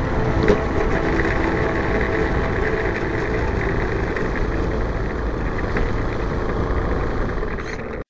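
Strong gusting wind buffeting the microphone, a steady deep rumble with a rush over it, cutting off abruptly at the end.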